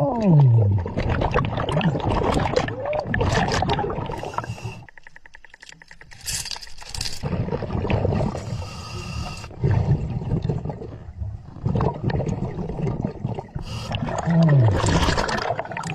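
Scuba diver breathing underwater: exhaled bubbles gurgling from the regulator, in uneven surges with a short lull partway through. A low tone slides down in pitch at the start and again near the end.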